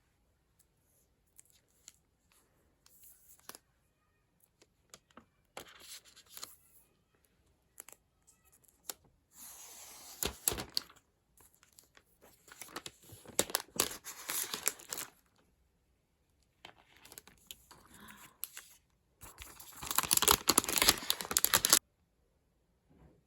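Packaging being torn and crinkled by hand in a series of short rips and rustles, the longest and loudest near the end.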